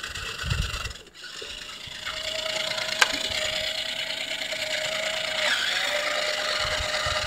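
Toy RC car's small electric motor running with a steady whine over a gritty grinding rasp; about three seconds in there is a single sharp click.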